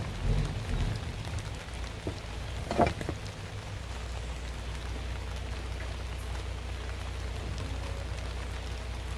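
Steady rain falling, with one short knock about three seconds in.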